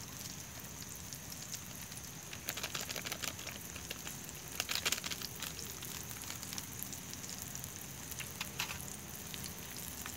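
Fish fillet frying in hot oil in a mess tin, a steady sizzle with scattered pops. Louder bursts of crinkling a few seconds in come from a foil seasoning sachet being torn open and shaken out.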